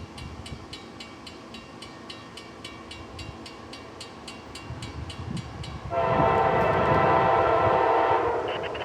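CSX freight locomotive's air horn sounding one long blast about six seconds in, a chord of several notes held for about two and a half seconds, over the growing rumble of the approaching diesel locomotive.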